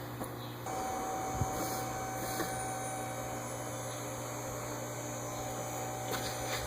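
A small motor running steadily with a hum and a high whine. It starts about a second in and stops near the end.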